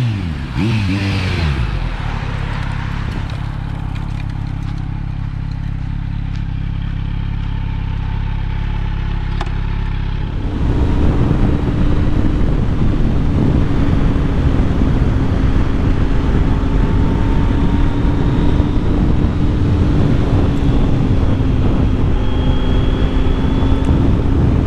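2020 Kawasaki Z900's inline-four through a LeoVince LV10 slip-on exhaust passing by, its note dropping sharply in pitch, then settling into a steady engine note. About ten seconds in, the sound jumps to a louder, rougher steady drone with a constant tone.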